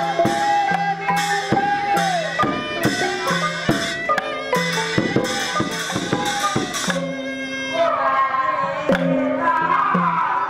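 A woman sings into a microphone through a PA over amplified traditional-style backing music, with a repeating bass line and hand percussion.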